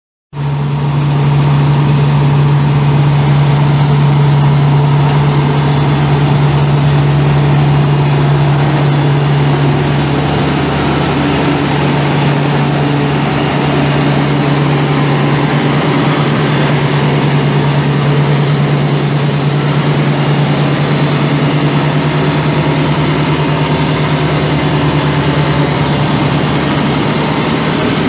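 Cummins six-cylinder turbo diesel engine of a 1997 Komatsu PC400LC-6 excavator idling steadily.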